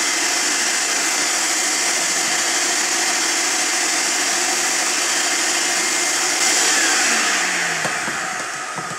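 Shop-vac running steadily, its hose sucking dust and lint out of the base of an electric clothes dryer. About six and a half seconds in, the vacuum's motor winds down with a slowly falling whine.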